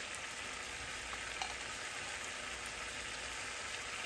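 Steady sizzling hiss of food cooking on the stovetop: a pot of broth on the heat beside a pan of stir-fried tofu.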